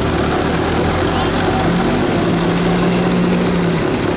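Tractor engine running steadily; its note rises about two seconds in and holds there briefly before dropping back.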